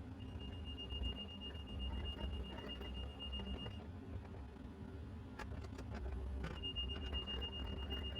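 A steady high electronic warning tone sounds for about three and a half seconds, stops, and starts again about six and a half seconds in, over a low steady rumble. A few sharp clicks fall in the gap.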